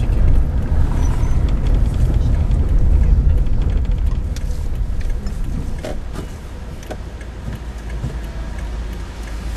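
A car driving slowly: low engine and tyre rumble that eases off about halfway through as the car slows to a stop.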